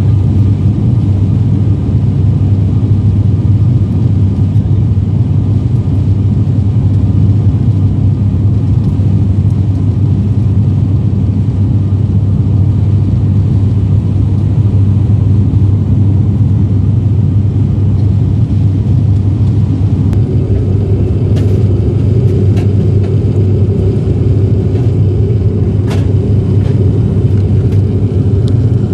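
Steady drone of a turboprop airliner's engines and propellers heard inside the passenger cabin in flight, with a deep, even hum. About two-thirds of the way through, a higher hum joins it, along with a few faint ticks.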